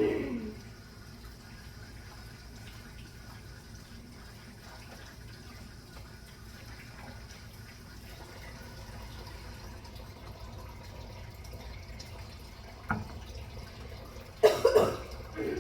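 Kitchen tap running steadily while hands are washed at the sink. Late on there is a sharp knock, and near the end a short, louder burst.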